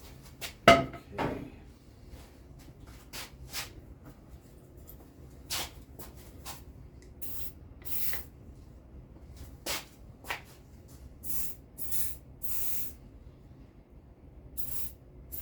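Workshop handling noise on a bicycle with a stuck stem: irregular knocks and clanks of tools and parts, the loudest about a second in, and from about the middle on several short hissing bursts like an aerosol spray.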